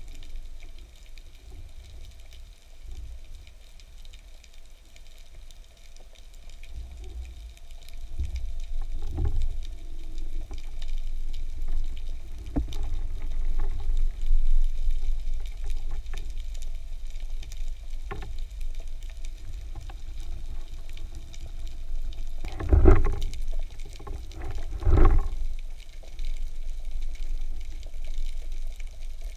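Underwater sound picked up through a camera's waterproof housing: a low, muffled rumble of water moving past as the diver swims, growing louder after the first few seconds. Two louder swooshes come near the end.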